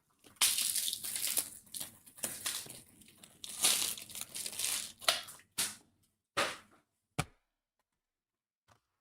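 Plastic wrapping torn and crumpled by hand: a dense crinkling rustle for about five seconds, then three short crackles and a sharp click.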